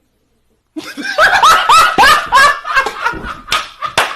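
Dead silence for under a second, then a burst of laughter in short rhythmic 'ha' pulses. A few sharp slaps or clicks come near the end.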